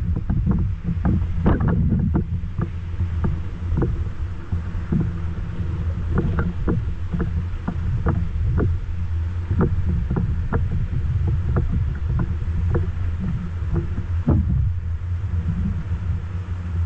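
Whitewater river in high flow rushing and churning around a kayak, a steady heavy low rumble, with frequent irregular splashes and knocks close by, about one or two a second.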